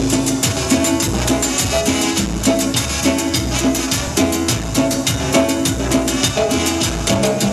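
Live Latin tropical dance band playing: a brass section, bass and keyboard over a steady, busy beat of timbales, congas and drum kit.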